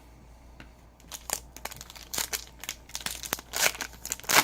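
Foil trading-card pack wrapper crinkling and being torn open, irregular crackles starting about a second in and loudest near the end.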